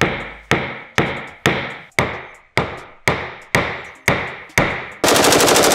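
Paintless dent repair tap-down: a plastic punch is struck against a car door's sheet metal in sharp, evenly spaced taps, about two a second, knocking down the high metal around a dent. Near the end a rapid burst of machine-gun fire cuts in.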